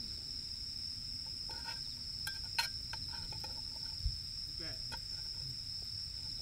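Crickets trilling steadily in one unbroken high note. A few light clicks come in the middle, and a dull knock about four seconds in, from hands working at the table.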